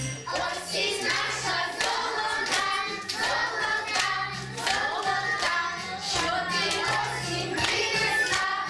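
A group of young children singing a song together over backing music with a steady bass, with hand claps.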